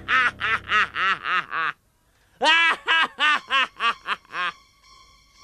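A cartoon character laughing loudly: two runs of quick, even 'ha-ha-ha' syllables with a brief break between them. A faint steady high tone follows near the end.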